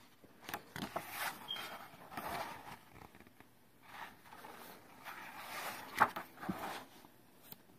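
Pages of a hardback picture book being turned by hand: a series of paper rustles and swishes, with a sharp tap about six seconds in.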